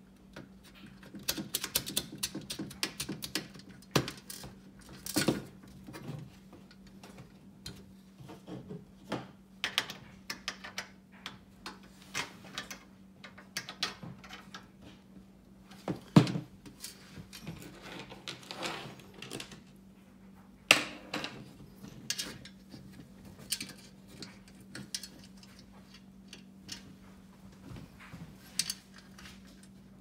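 Irregular metallic clicks, taps and rattles of small screws, lock washers and nuts being handled and fitted by hand into a steel typewriter-table frame, with a few sharper knocks against the sheet-metal panels, loudest about a third and two thirds of the way in.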